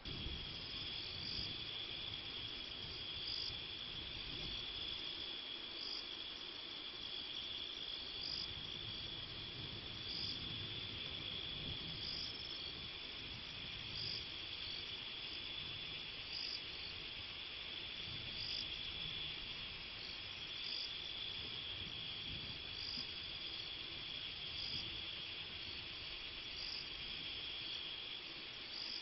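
Night chorus of crickets: a steady, high-pitched trill, with a higher, brief chirp repeating about every two seconds.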